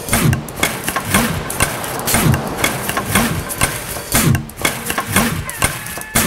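Machine-like running sound with a low swooping pulse about once a second and many sharp clicks.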